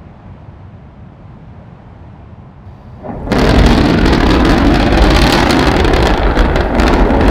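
Sound-designed descent of the Perseverance rover through the Martian sky: a low steady rumble, then about three seconds in a sudden, much louder rumbling roar cuts in and holds.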